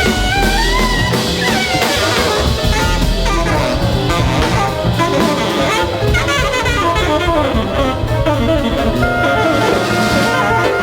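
Loud background music: a busy band track with many shifting melody lines and a steady beat, no singing in this stretch.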